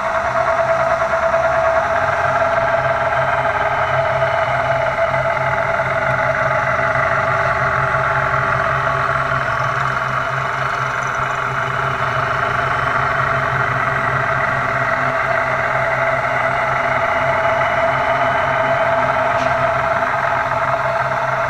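Milling head of a Giddings & Lewis vertical turning center's Y-axis attachment face-milling a metal workpiece: a steady whine from the spindle and cutter over a low machine hum.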